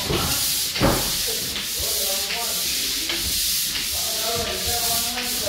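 Drywall pole sander scraping back and forth over joint compound on a drywall ceiling, a rasping stroke repeating about every 0.7 seconds. Faint voices in the background.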